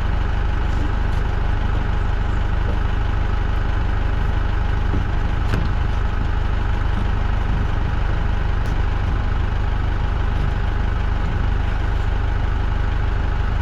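An engine running steadily at a constant speed, a deep even rumble with a couple of faint ticks over it.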